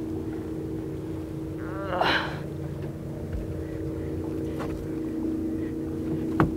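Boat's outboard motor running steadily with a low hum. A short cry breaks in about two seconds in, and a sharp knock sounds just before the end.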